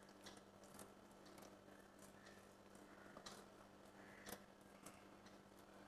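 Near silence: a few faint, soft clicks and squishes from a hand rubbing spice paste into a mackerel in a steel pot, over a faint steady hum.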